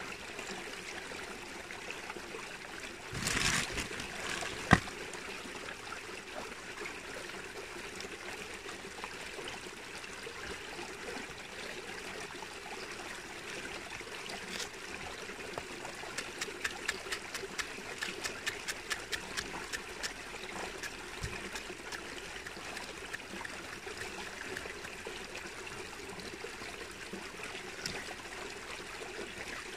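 Steady trickling, rushing water. A brief louder rustle comes a little over three seconds in, a single sharp click follows near five seconds, and a run of quick clicks comes about two-thirds of the way through.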